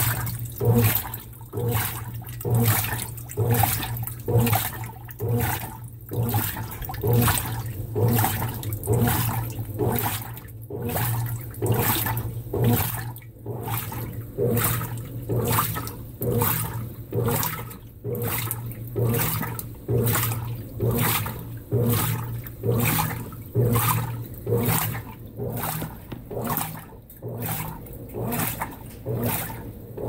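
Consul 16 kg top-load washing machine agitating in its rinse: water sloshing and swishing against the clothes in an even rhythm of about one stroke a second, over a steady low motor hum.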